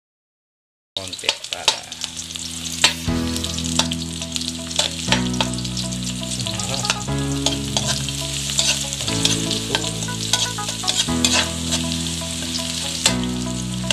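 Onion and garlic sizzling in hot oil in a metal wok, starting suddenly about a second in, with a metal ladle stirring, scraping and clinking against the pan. Low steady tones that change about every two seconds run underneath.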